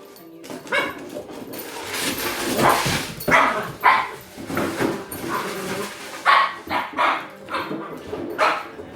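Puppy barking in a series of short, sharp barks, with a rustling noise just before the barks start.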